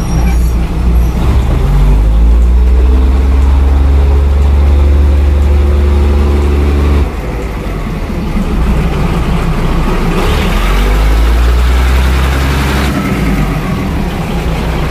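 Diesel railcar train passing slowly at very close range, its underfloor diesel engine loud. The engine note rises and holds, then cuts off suddenly about seven seconds in. A second engine rises and runs again from about ten to thirteen seconds in.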